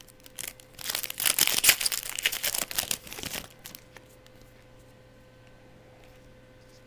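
Foil trading-card pack wrapper crinkling and tearing open for about two and a half seconds, then only a faint steady hum.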